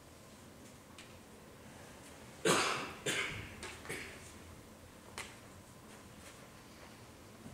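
A person coughing four or five times in quick succession, the first cough the loudest, over quiet room tone; a single sharp click follows about two seconds later.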